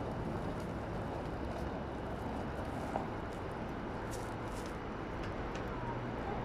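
Steady low rumble and faint hum of a railway station's ambience, with an electric multiple unit standing at the platform, and a single click about three seconds in.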